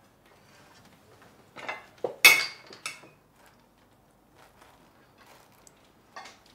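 Forks and knives clinking against plates as people eat at a table: a few scattered clinks, the loudest just past two seconds in and one more near the end.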